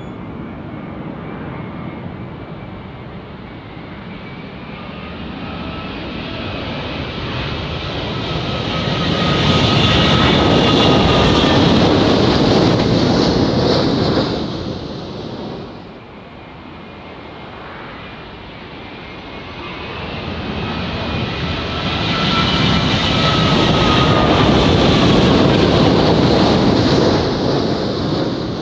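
Two Boeing 787s with Rolls-Royce Trent 1000 engines passing low overhead on landing approach, one after the other. Each one's jet noise swells over several seconds to a loud peak with a steady whine on top, then falls away; the first drops off suddenly about halfway through.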